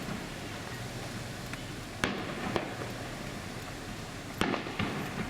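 Fireworks bursting: four sharp bangs, a pair about two seconds in and another pair near the end, over a steady background noise.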